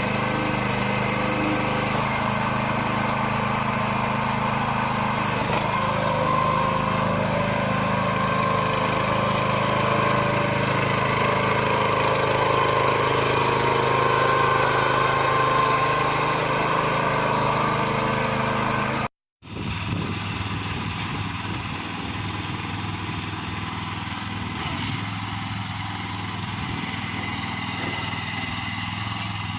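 A towable backhoe's 15 hp gasoline engine running steadily. It cuts out for a moment about 19 seconds in, then carries on slightly quieter.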